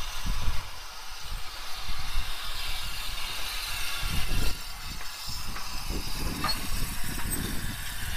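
Small steam saddle-tank locomotive and its brake van rolling slowly past at close range: steam hiss over a low rumble, with a few sharp knocks from the running gear and wheels in the second half.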